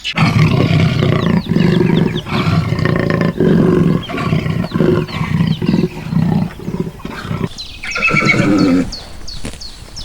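A large animal giving a run of loud, low, pulsing roars, followed by a shorter, higher call about eight seconds in.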